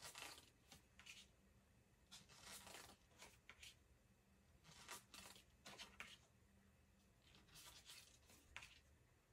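Tarot cards being slid off a deck and laid one by one onto a wooden tabletop: faint swishes and light slaps of card stock, a dozen or so short sounds spread unevenly through the stretch.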